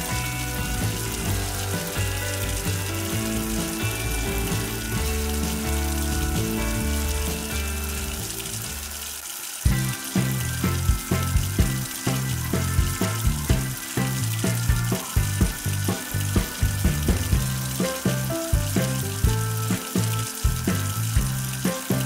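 Background music over a steady trickle of water from a toy sink's faucet into its basin. The music drops out briefly about nine seconds in and comes back with a steady beat, while the water hiss runs on underneath.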